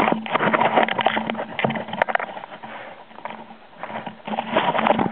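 Close rustling, scraping and crunching against the camera microphone: camera handling and movement over snow and ice, with a steady low hum underneath.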